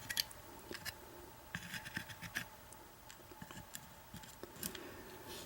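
Faint, scattered small clicks and scratches: small metal lock parts (pins and springs) being handled and moved about on a work surface.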